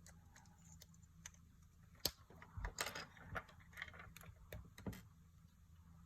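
Small hard plastic clicking and rattling from hands handling a surprise egg's toy and its capsule. There is one sharp click about two seconds in, then a quick run of clicks and rattles for about three seconds.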